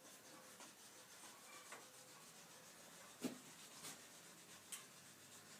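Faint rubbing and scraping as wood glue is applied to plywood pieces, with a few light wooden knocks; the loudest comes a little past halfway.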